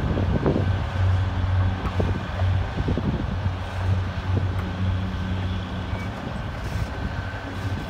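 Diesel locomotive engine running as it slowly pulls a short train away, a steady low hum.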